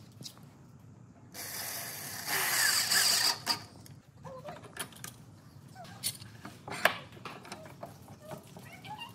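Hand work on wood in a workshop: a rasping scrape lasting about two seconds, then scattered clicks and knocks of tools and wood.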